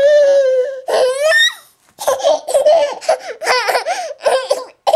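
Baby laughing: a drawn-out high squeal that rises in pitch, then a run of quick choppy laughs.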